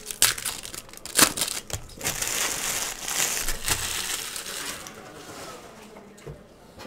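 Foil trading-card pack being torn open and its wrapper crumpled: a few sharp crackles, the loudest about a second in, then a stretch of crinkling that fades out after about four and a half seconds.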